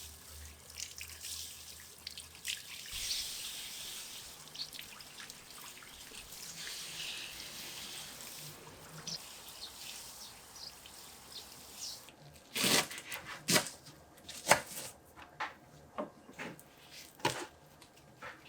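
Water dripping and trickling with small irregular drips for about twelve seconds, then a knife chopping on a cutting board in sharp, separate strokes about twice a second.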